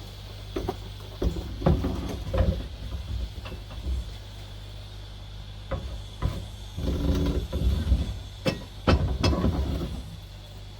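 Several bursts of knocks and clunks from hardware being handled, over a steady low hum.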